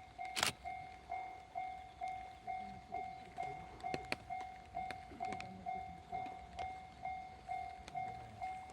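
Japanese railway level-crossing warning bell ringing, an even electronic ding repeating about twice a second. A single sharp knock sounds about half a second in.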